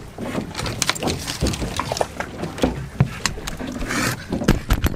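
A dog panting, mixed with irregular knocks and clatter on a boat deck.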